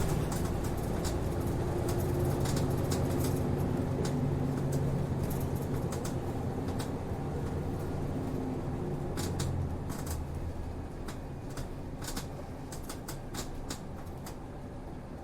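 Diesel engine of a city route bus running, heard from inside the passenger cabin, with scattered clicks and rattles from the interior. The engine note is strongest in the first few seconds, then eases off and grows quieter toward the end.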